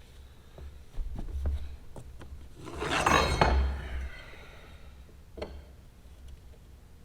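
Metal hand tools clinking against a broken lag screw and the floor around it: scattered small clicks, then a louder metallic rattle with ringing about three seconds in.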